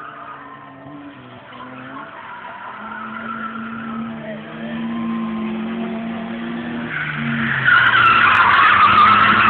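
A car engine running at steady revs and growing louder. About seven seconds in, the tyres start squealing loudly as the car drifts, and they are loudest near the end.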